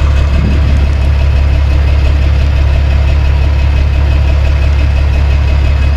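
A large vehicle engine running steadily with an even, deep hum.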